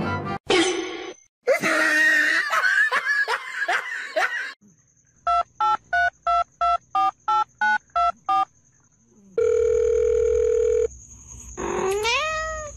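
A row of about ten short, evenly spaced telephone keypad beeps, then a steady held tone, then a cat's meow that rises in pitch near the end.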